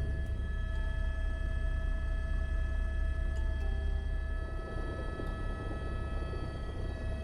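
Helicopter in flight heard from inside the cabin: a steady low rotor and engine rumble with a constant high turbine whine above it. It dips slightly in level about four and a half seconds in.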